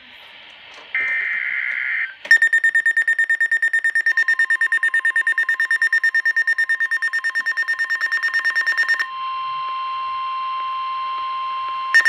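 Eton weather alert radio going off for a NOAA Weather Radio warning: a burst of the buzzy SAME digital header, then from about two seconds in the radio's rapid, high-pitched alarm beeping. About four seconds in, the broadcast's long, steady warning tone joins it, and it carries on alone after the beeping stops near the nine-second mark. This signals an incoming severe thunderstorm warning.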